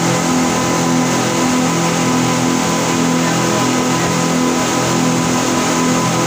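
Speedboat's engines running steadily at cruising speed, heard from inside the cabin: a loud, even drone with a regular beat in its hum, over a steady hiss of rushing water and wind.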